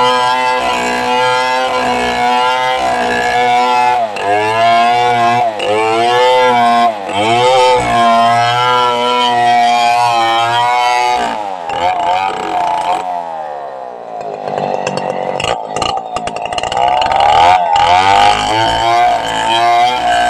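Stihl two-stroke chainsaw running at high revs while ripping a log lengthwise, its pitch dipping and recovering as the chain loads up in the cut. About two-thirds of the way through the engine pitch falls away as the saw eases off, then revs back up into the cut.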